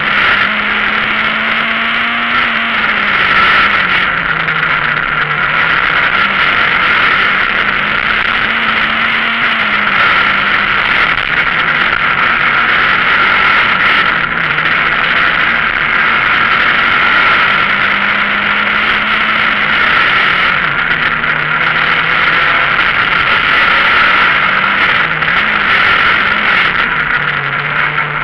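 Citroën Saxo VTS rally car's four-cylinder petrol engine driven hard on a stage, heard from inside the cabin. The engine note rises and drops repeatedly over a steady wash of engine and road noise.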